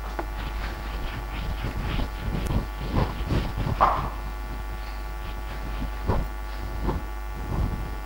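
Marker pen writing on a whiteboard: a run of short, irregular scratchy strokes, busiest in the first half and again near the end, with the loudest stroke about four seconds in. A steady mains hum runs underneath.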